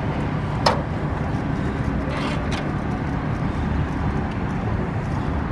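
Steady low rumble of street background noise, with a sharp click about two-thirds of a second in and two fainter clicks around two and a half seconds.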